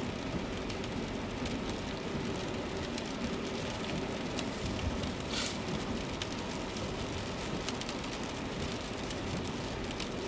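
Steady road noise inside a moving car on a wet road: tyres hissing on wet tarmac with rain on the car, and one brief louder hiss about five seconds in.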